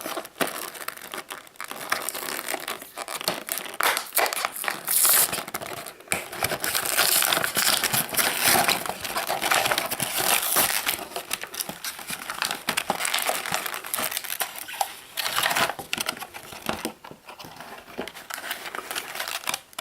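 Shopkins 12-pack packaging crinkling and crackling as it is opened and handled, with many small clicks and rustles, busiest in the middle.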